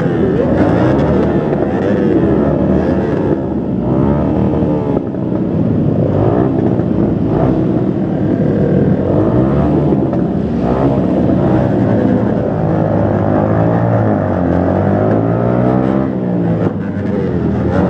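Many motorcycle engines running together, several revving at once so that their pitches overlap and rise and fall.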